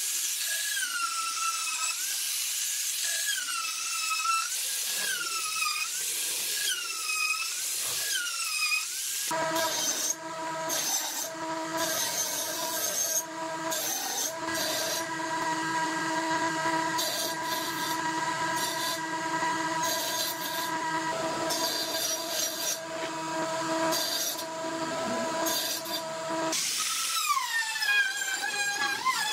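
Electric power tool motor whining, its pitch dipping and recovering about every second and a half. About nine seconds in it gives way to a steadier, lower machine hum with several fixed tones, which runs until the dipping whine returns near the end.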